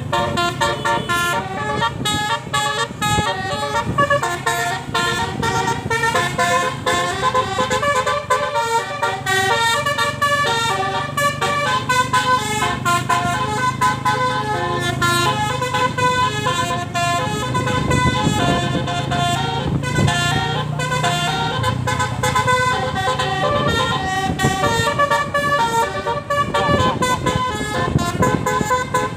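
Telolet horn on an Indonesian tour bus: a multi-tone air horn playing a quick melody of short stepping notes without a break, with the bus's engine humming low underneath.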